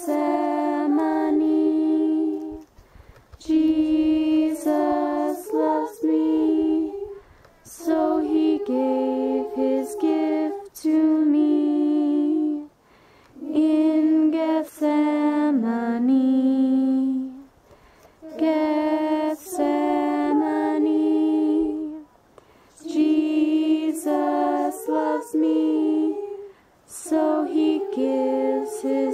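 A female voice singing a slow melody unaccompanied, in phrases of two to three seconds broken by short pauses for breath.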